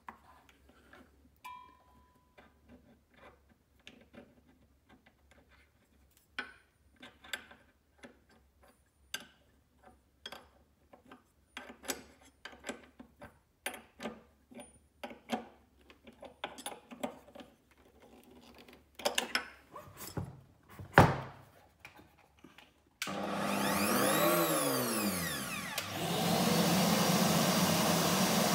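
Metal clicks and knocks as a flat spanner tightens the collet nut on a Bosch POF 1400 ACE router bit, with a few louder knocks. Near the end the router is switched on: its motor spins up with a sweeping pitch for a few seconds, then runs steadily.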